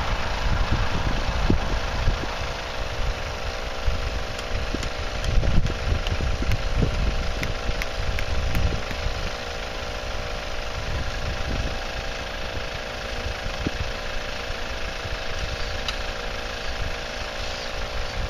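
Twin 12V air compressors running with a steady hum, inflating the tent's air beams, with wind gusting on the microphone.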